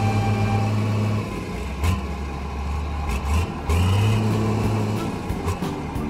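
Dump truck engine sound effect: a low, steady engine hum that eases off and picks up again a few times as the trucks drive.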